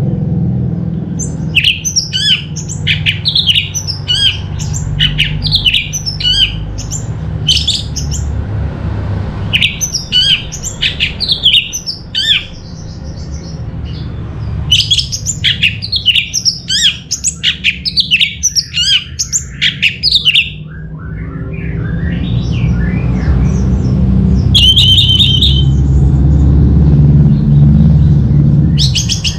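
Orange-headed thrush singing: rapid phrases of high whistled and chattering notes, a few seconds each with short pauses between, ending in a run of lower rising notes and a short buzzy trill. A steady low hum runs underneath and grows louder in the last several seconds.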